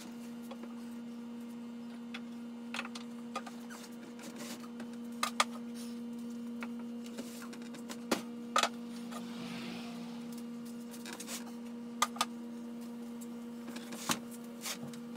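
Scattered knocks, clicks and a brief scrape as a heavy aluminium-extrusion CNC router frame is pushed across a table saw onto a plywood workbench, over a steady electrical hum.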